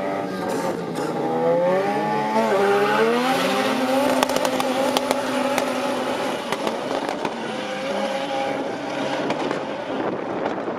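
Two turbocharged drag cars, a Honda Civic and a VW Golf, revving on the start line and launching down the strip: the engine notes waver and climb, settle into a steady high-revving note with a run of sharp pops and crackles, then fade away near the end.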